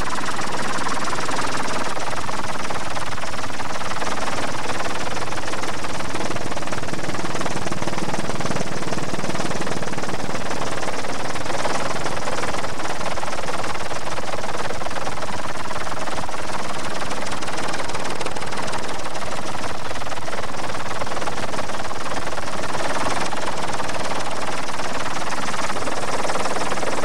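A helicopter's engine and rotor drone steadily and loudly, with no change in level.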